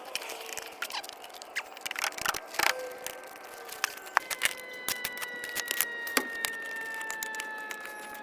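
Shovel digging carefully in dirt around a buried gas line: a string of short, irregular scrapes and clicks. From about four seconds in, faint steady tones sound behind it, falling slightly in pitch.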